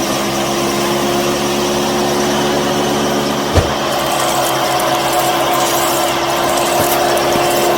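A small motor running steadily at a constant pitch, with a single sharp knock about three and a half seconds in.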